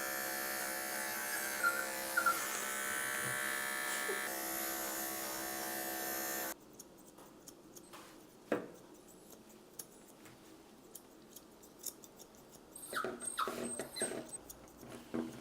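Electric pet grooming clippers buzzing steadily while trimming a puppy's paw pads, then cutting off suddenly about six and a half seconds in. A Pomeranian–Chihuahua puppy whines briefly over the buzz, and small clicks follow once it stops.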